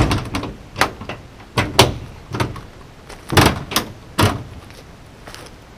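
Hinged door of a bus's underbody propane-locker compartment being shut and latched: a string of sharp clanks and clicks, the loudest at the very start, then several smaller knocks spread over about four seconds.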